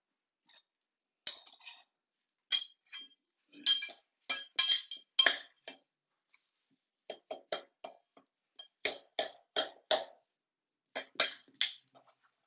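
Rubber mallet tapping new floor planks into place, in short runs of quick taps with pauses between, each hit giving a light clinking ring.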